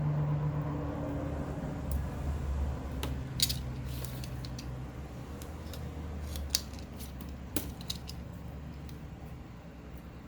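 Scissors cutting double-sided adhesive strips: a handful of sharp snips and clicks, spread through, over a low steady hum.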